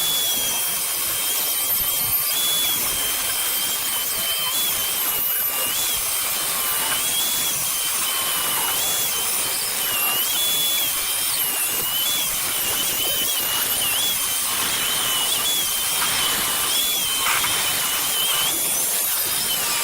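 An electric power tool running steadily on wood, its high whine dipping briefly every second or two.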